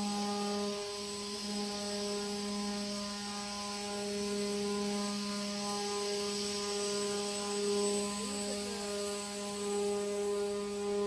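A steady mechanical hum with a hiss above it, unchanging throughout.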